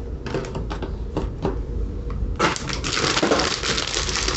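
Plastic bag crinkling as a new air filter is unwrapped by hand: scattered crackles at first, then dense, continuous crinkling from a little over halfway in.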